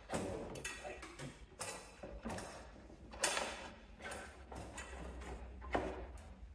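Irregular clicks, knocks and rustling of a fuel tank being handled and fitted onto a Cub Cadet 1650 lawn tractor's engine, with sharper knocks at the start, about three seconds in and near the end.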